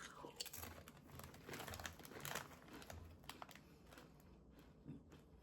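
Faint crackly crunching of a Doritos tortilla chip being chewed, in scattered irregular clusters.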